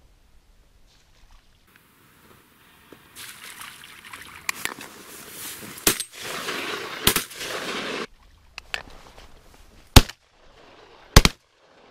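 Shotgun shots fired at ducks coming in over decoys: two sharp shots about a second apart near the middle, over a few seconds of rushing noise, then two louder shots near the end.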